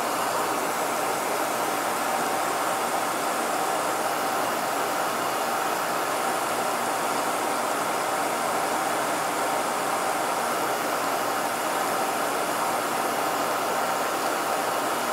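Kearney & Trecker milling machine running a slow power-fed plunge cut with a large end mill into 1045 chrome-plated steel: a steady machining drone and hiss that holds even throughout.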